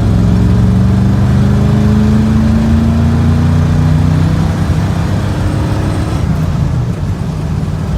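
Truck's 390 V8 with loud exhaust pulling hard under acceleration, its pitch rising smoothly for about four seconds before easing off about six seconds in. It pulls cleanly with no hesitation or stumble on the newly fitted Holley 4160 carburetor.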